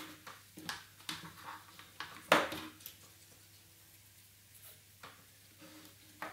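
Thin cardboard strips being folded and handled at a table: scattered soft rustles and light clicks, with one sharper crackle about two and a half seconds in.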